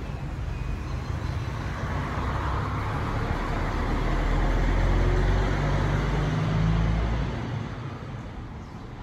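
Road traffic noise: a motor vehicle passing, a low rumble that swells to its loudest about five seconds in and then fades.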